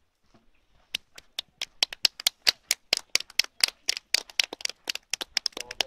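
A small group of people clapping: sharp, separate handclaps, several a second, starting about a second in.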